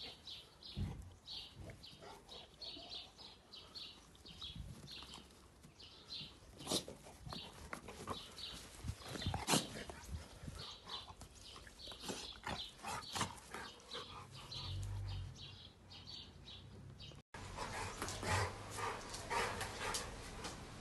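Two bully-breed dogs at rough play, making scattered short dog sounds, with brief sharp knocks among them.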